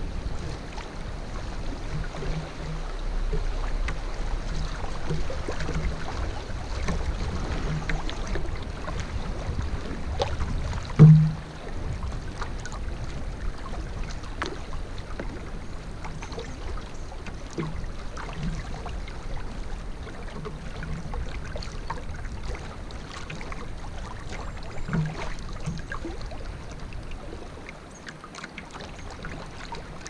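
Canoe being paddled on a river: water splashing and dripping, with soft knocks every second or two and one loud thump about eleven seconds in. A low rumble runs underneath and eases near the end.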